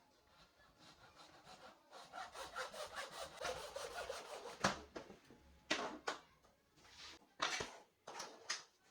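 Sandpaper on a hand sanding block rubbed back and forth on wood: a run of quick, short strokes, about four a second, then a few slower, separate strokes, the loudest about halfway through.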